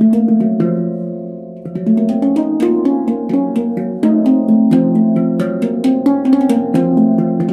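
NamiHandpan steel handpan in an F2 hijaz scale, its tone fields struck with the fingers so that the notes ring and overlap. The ringing fades during a short pause about a second in, then a fast run of taps picks up and grows busier.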